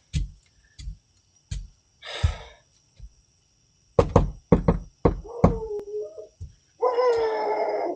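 Knocking on a front door: three single knocks, another a little later, then a quick run of knocks, picked up by a doorbell camera's microphone. Near the end comes a loud, drawn-out voiced sound that holds one pitch for about a second.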